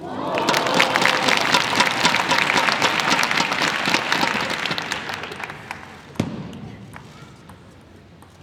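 Arena crowd applauding and cheering at the end of a table tennis rally: dense clapping breaks out suddenly with a few voices in the first second, holds for about four seconds, then dies away. A single sharp knock about six seconds in.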